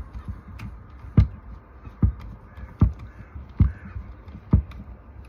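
Screwdriver driving a screw back into the wrap handle of an Echo CS2511TES top-handle chainsaw, with a dull knock a little less than once a second as each turn of the driver is taken.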